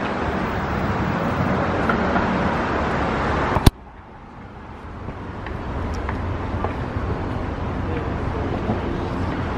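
Steady road traffic noise, broken by a sharp click about four seconds in, where the sound drops abruptly. After the click a quieter traffic hum slowly builds back, with a few faint taps.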